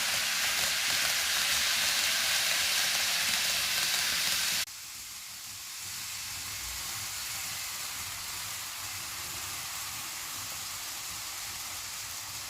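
N gauge model train running on its track, a steady hissing rolling noise that cuts off abruptly about five seconds in, leaving a quieter steady hiss.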